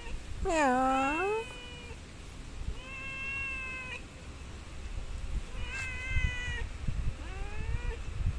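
Domestic cat meowing four times: one loud meow that dips and rises in the first second, then three shorter, quieter, higher-pitched meows, the last one rising.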